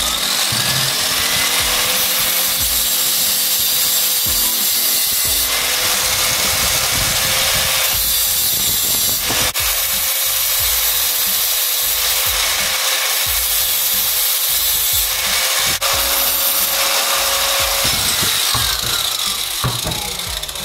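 A small electric power tool's motor spins up, runs at a steady pitch while it cuts into a workpiece, and winds down near the end. A hissy cutting noise over the motor comes and goes in stretches of a few seconds.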